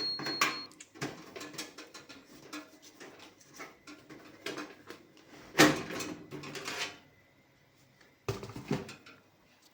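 Handling noises from a metal mini PC case: a run of small clicks, taps and scrapes, with a louder clatter about five and a half seconds in and two more knocks near the end.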